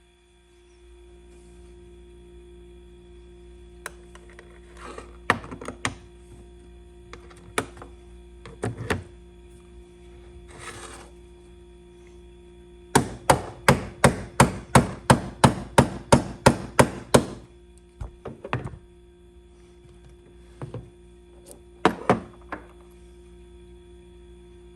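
Mallet striking a Lee Loader die, seating and crimping a .38/.357 Magnum bullet: scattered single knocks, then a quick, even run of about a dozen blows a little past halfway, then a few more knocks. A faint steady hum lies underneath.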